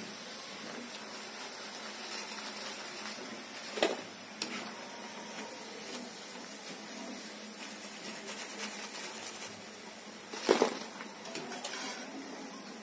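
Two sharp clinks of kitchen utensils against cookware, one about four seconds in and a louder one near ten and a half seconds, over a steady faint hiss.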